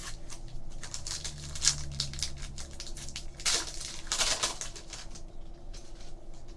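Crinkling and rustling of trading card pack wrappers and cards being handled: a run of short crackles, with two louder rustles about three and a half and four and a half seconds in.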